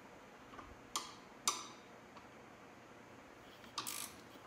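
Sharp clicks of a hand tool working the bolt on a motorcycle's front frame mount: two single clicks about a second in, half a second apart, then a short cluster of clicks near the end.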